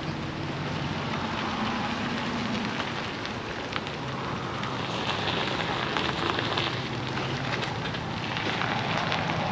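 Tow vehicle's engine running low and steady under a continuous crackling, rustling noise, with many small ticks, a little louder from about five seconds in.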